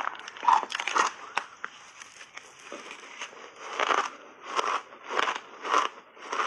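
Close-up crunching of frozen blueberry shaved ice being bitten and chewed: a couple of loud crunches in the first second, a quieter stretch, then steady chewing crunches about every half second from about four seconds in.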